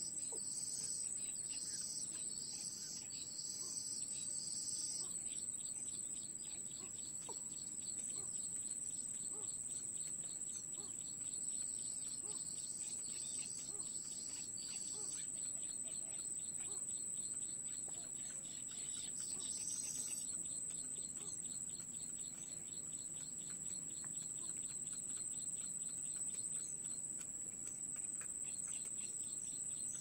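A continuous high-pitched insect drone with groups of rapid, high chirps, strongest in the first few seconds, again around the middle and briefly about two-thirds through, over a faint fast ticking.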